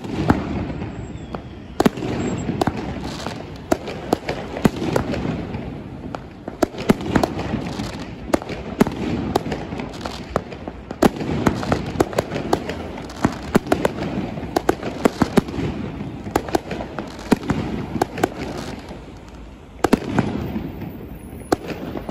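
Aerial fireworks bursting overhead: a dense, continuous run of bangs and crackles, with sharp single reports standing out every second or so over a steady rumble. There is a short lull near the end before another bang.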